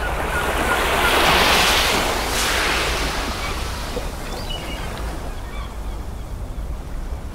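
Rushing, noise-like ambience opening a recorded song, swelling up about a second in and then slowly dying away over a steady low rumble.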